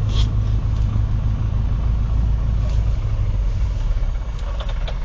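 Cessna 150's four-cylinder Continental O-200 engine running steadily with a low, even drone.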